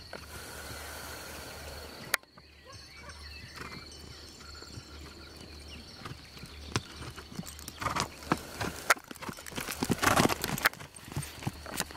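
Hoofbeats of a ridden horse on grass and bare earth, irregular thuds that grow louder and closer in the second half.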